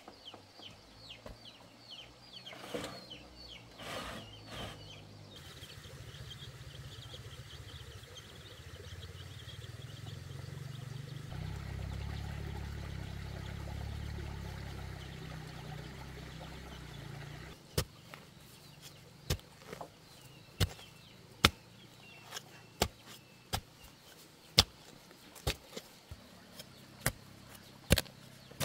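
Sharp blade strokes cutting into a bamboo stake, about one a second, as it is shaped by hand. Before that comes a steady low rumble that swells and fades, with birds chirping.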